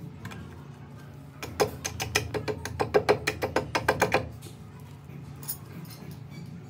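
Quick, even hammer taps, about seven a second for close to three seconds, driving a spacer and handle piece down onto a knife tang clamped in a bench vise.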